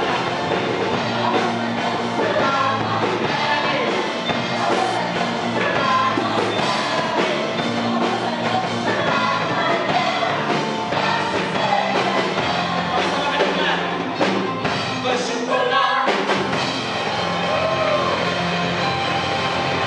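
Live worship band (drum kit, electric bass and keyboard) playing an upbeat song, with the congregation singing along. The music breaks briefly about three-quarters of the way through, then carries on.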